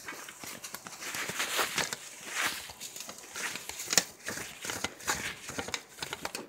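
Close rustling and crinkling with many irregular light clicks and knocks: hands at work cleaning a watercolour palette and handling paper and waste.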